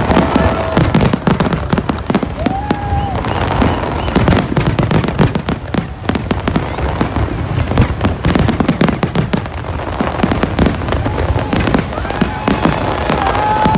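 Aerial fireworks display in a full barrage: many shells bursting in quick succession, rapid loud bangs over continuous crackling.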